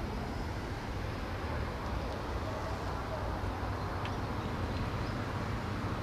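Steady outdoor background noise: a low rumble with a hiss over it, and a faint click about four seconds in.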